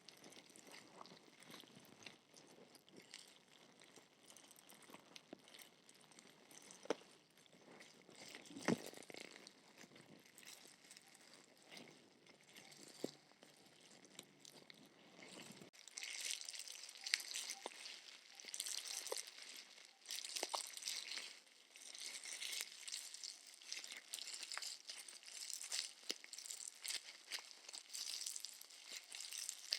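Packaging being crinkled and rustled, with scattered light taps and clicks; the crinkling grows louder and crisper about halfway through.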